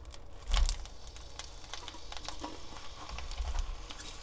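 Salted, squeezed eggplant slices dropped into an oiled nonstick pan, landing with irregular soft taps and a louder thump about half a second in.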